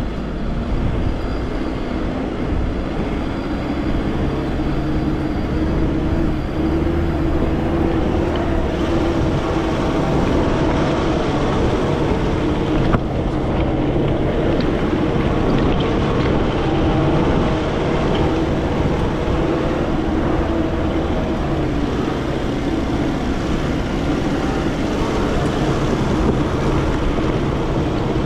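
Nissan Pathfinder R51's engine running steadily as the 4x4 drives a rocky off-road track, with one short knock about halfway through.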